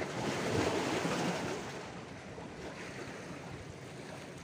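Sea surf washing against the rocks: a wave swells up over the first second or so, then the wash settles into a steady hiss.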